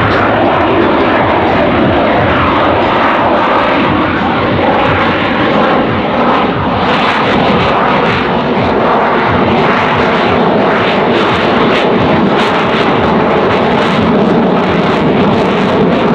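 Twin Pratt & Whitney F119 turbofans of a Lockheed Martin F-22 Raptor in flight, a loud, steady jet noise with crackling through the second half.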